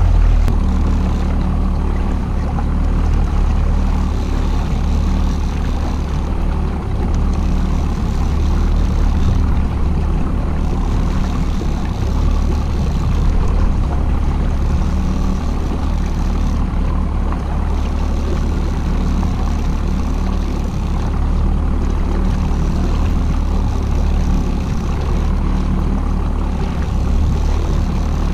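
Boat motor running steadily, a low hum with a haze of water noise over it.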